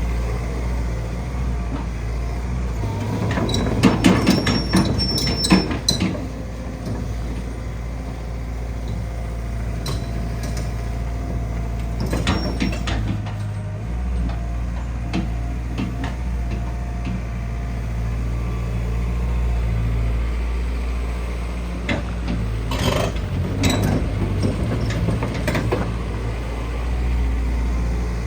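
Hyundai HX160L excavator's diesel engine running steadily, its low hum shifting level now and then. Clusters of metallic knocks and clanks come around four to six seconds in, again about twelve seconds in, and around twenty-three seconds in.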